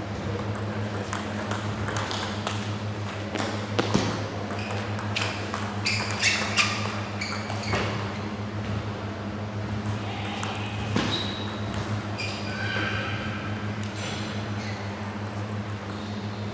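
Table tennis rally: the celluloid-type plastic ball clicks sharply off bats and table in quick succession, the hits thinning out after about eleven seconds as the point ends. A steady low hum runs underneath.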